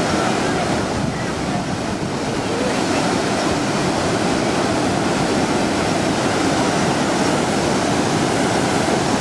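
Waterfall pouring steadily: a dense, unbroken rush of falling water.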